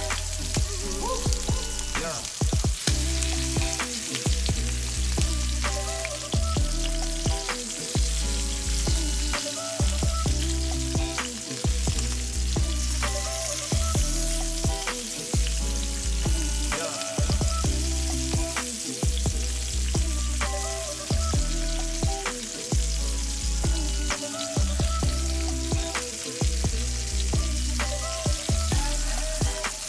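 Chicken drumsticks frying in hot oil in a cast-iron skillet, a steady sizzle, mixed with background music that has a deep, rhythmic bass line.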